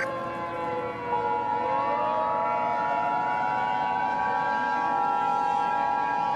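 Civil defense siren winding down. About a second in, the EAS two-tone attention signal (853 and 960 Hz together) starts and holds steady, while a siren winds up again beneath it.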